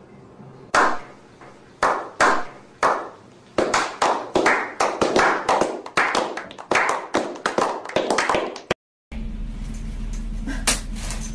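A slow clap by a small group of people: single hand claps about a second apart quicken into steady applause, which cuts off suddenly about three-quarters of the way through.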